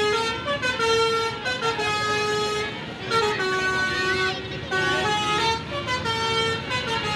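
Tour bus 'basuri' telolet horn playing a tune: a run of held, flute-like notes that step up and down in pitch, each lasting about half a second to a second.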